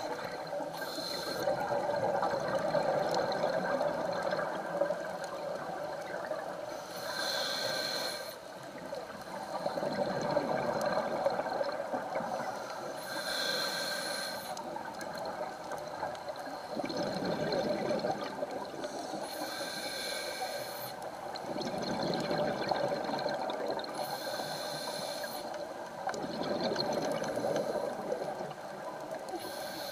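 Scuba diver breathing underwater through a regulator: a hiss on each inhale, then bubbling on the exhale, repeating every five or six seconds.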